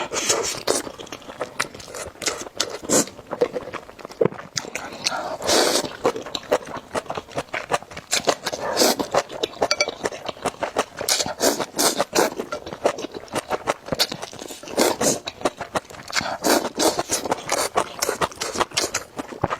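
Close-miked eating of noodles: rapid wet chewing and mouth clicks, broken by several longer slurps spread through.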